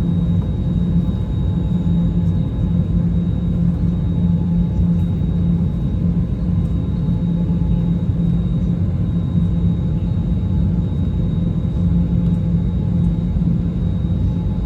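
Steady low rumble of an Airbus A321neo jetliner heard from inside the cabin, with a faint steady high tone above it.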